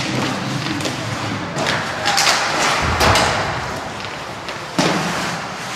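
Ice hockey play in a rink: skates on the ice and sticks on the puck, with a heavy thud about three seconds in and a sharp knock near the end.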